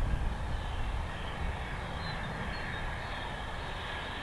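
Low rumble of a heritage train running past, easing off over the first second and then holding steady.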